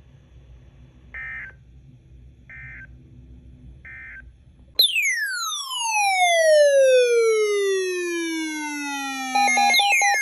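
Emergency Alert System end-of-message code: three short warbling data bursts about a second and a half apart, marking the end of the severe thunderstorm warning. About five seconds in, a much louder falling whistle-like sweep with overtones slides down over several seconds. Near the end, steady pulsing tones start as a second falling sweep begins.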